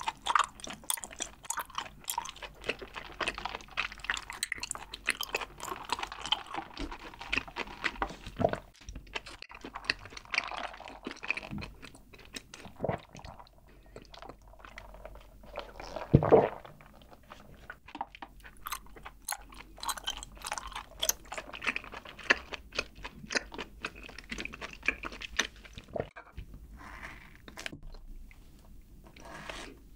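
Close-miked eating sounds: steady chewing with wet mouth clicks, and a louder slurp through a drinking straw about halfway through.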